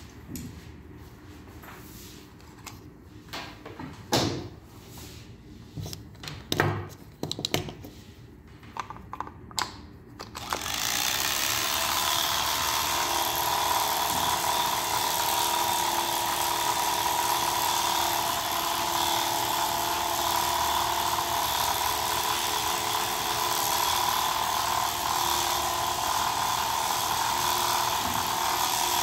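Electric pet hair clippers switched on about ten seconds in, then running with a steady buzz as they clip a Persian cat's coat. Before they start there are a few scattered clicks and knocks of handling.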